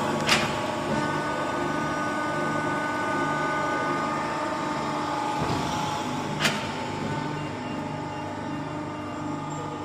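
Hydraulic guillotine shear's electric motor and oil pump running steadily: a continuous hum with a few held whine tones. Two sharp clicks come through, one just after the start and one about six seconds later.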